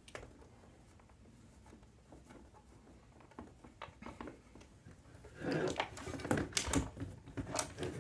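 Handling noise of a soldering station being assembled and moved on a desk: light clicks and taps of plastic and metal parts, then a louder run of knocks and rattles about five and a half seconds in.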